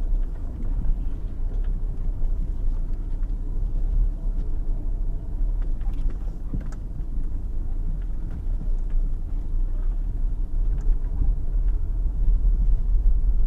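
Four-wheel drive moving slowly along a rough, overgrown track: a steady low rumble of engine and tyres, with faint scattered ticks and scratches as spinifex grass brushes the vehicle.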